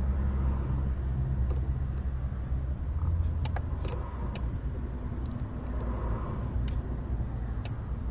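Door lock relay clicking several times, sharp clicks while the unlock wire is triggered, but the locks do not move, over a steady low rumble. The unlock command reaches the relay yet nothing unlocks, which the mechanic suspects is the alarm disabling the unlock feature.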